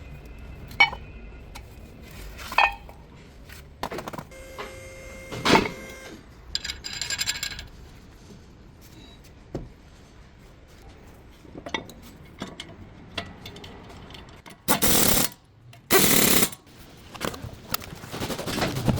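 Workshop sounds of a brake job: metal tools and parts clinking and knocking, some strikes ringing briefly, then two loud rushing bursts about a second apart near the end.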